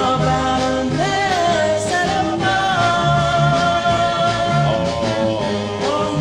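Early-1960s vocal group record: voices singing sustained notes over a band with a bass line.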